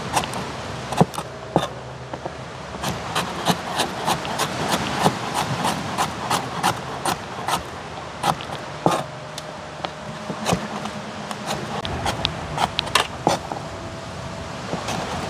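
Knife chopping vegetables on a cutting board: quick, irregular taps, several a second.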